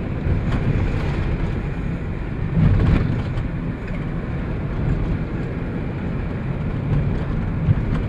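A van's engine and tyres running on the road, heard from inside the cab as a steady low rumble. It briefly swells louder a little under three seconds in.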